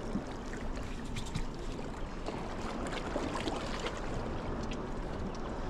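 Seawater lapping and sloshing against the rocks at the water's edge, a steady wash broken by many small splashes and ticks.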